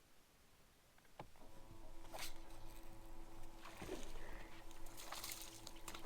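Electric trolling motor switching on about a second and a half in and running with a steady, even-pitched hum, with a few short splashes of water against the boat.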